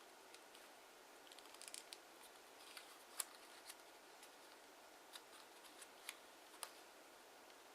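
Faint scattered clicks and crackles of kraft origami paper being folded and creased by hand. There is a quick cluster of small crackles early on and one sharper click near the middle.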